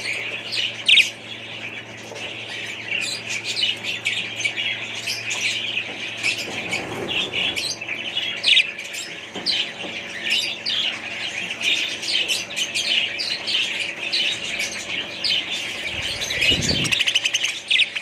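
A flock of small pet birds chirping and squawking in a continuous, overlapping chatter of short, high calls. A brief low rumble comes near the end.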